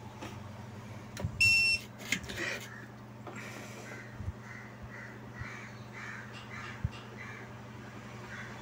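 A single electronic beep, a steady high tone lasting under half a second, about a second and a half in. Then an animal gives harsh calls over and over in the background, roughly two a second, over a low steady electrical hum.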